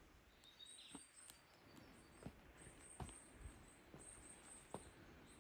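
Near silence with faint, irregular taps of footsteps on a stone-paved path, about one every half second to a second, and faint high bird chirps.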